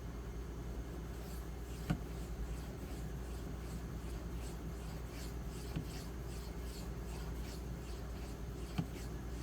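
Steel knife blade stroked back and forth on a 4000-grit diamond matrix stone, a soft, faint scraping at about two to three strokes a second with a few light clicks. It is muted and gives very little audible feedback: the stone feels soft and rubbery and sounds deadened.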